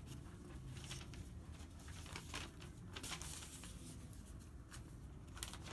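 Faint rustling and scattered soft clicks, with a steady low hum underneath.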